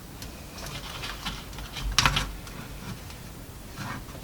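Plastic clicks and light handling rustle as the case of a Yamaha PortaSound PSS-30 keyboard is opened like a clamshell, with a louder click about two seconds in.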